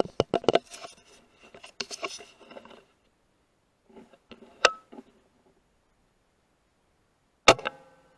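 A scatter of clicks and clattering handling noises, a single sharp click about halfway, then one loud, sudden crack near the end followed by a brief metallic ring.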